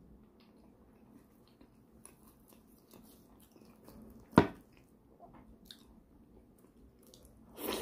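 Close-up chewing and mouth sounds of a man eating pork leg curry by hand, with faint soft clicks throughout. A single sharp knock stands out about halfway through, and another louder noise comes near the end.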